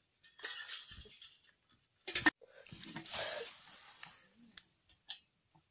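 Grass rustling and soil scraping as a hand pushes through weeds and digs into a crab burrow, with a sharp double click about two seconds in, the loudest moment, and another short click near the end.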